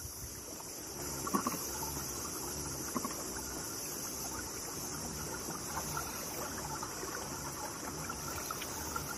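Water trickling and lapping against a plastic kayak hull as the kayak moves against the river current, swelling in a loose rhythm, with a couple of light knocks. A steady high insect buzz runs underneath.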